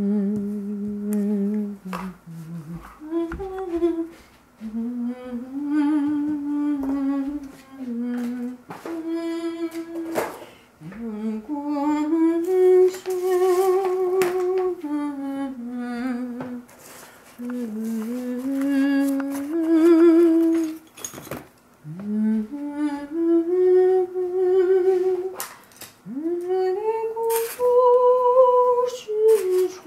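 A person humming a slow, wordless tune in long held and gliding notes, some with a slight waver. Short clicks and knocks of objects being handled on a desk come in between the notes.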